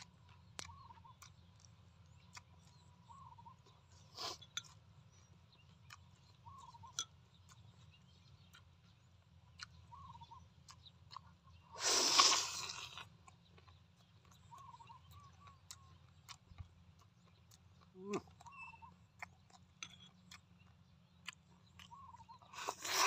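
Mukbang-style eating of braised pork by hand: mouth clicks and chewing, with a loud tearing bite into the meat about halfway through and another near the end. Short bird chirps repeat faintly every few seconds.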